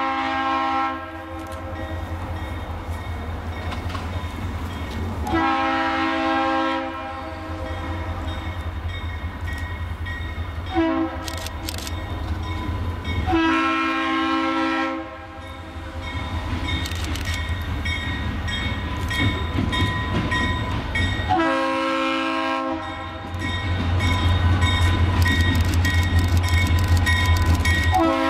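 Norfolk Southern diesel locomotive's multi-chime air horn sounding the grade-crossing pattern: long, long, short, long. Two more long blasts follow, the last starting right at the end. Under the horn runs the steady low rumble of the locomotive's diesel engine, which gets louder near the end as it comes close.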